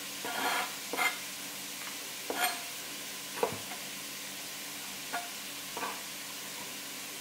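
Chef's knife chopping cooked chicken on a cutting board: about six sharp chops at uneven intervals, over a steady background hiss.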